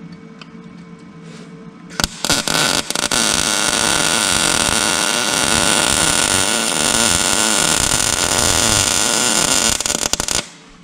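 Welding arc crackling as a bead is run for about eight seconds. It starts with a few stuttering strikes about two seconds in and cuts off sharply near the end.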